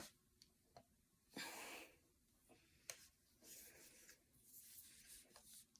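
Near silence, with a few faint clicks and light rustling from a tripod being folded up by hand, and a soft breath-like hiss about a second and a half in.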